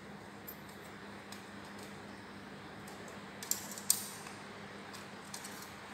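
Straight hand snips cutting thin sheet metal: a few faint ticks, then a quick cluster of sharp metallic clicks a little past halfway, the last one the loudest, as the blades close through the sheet.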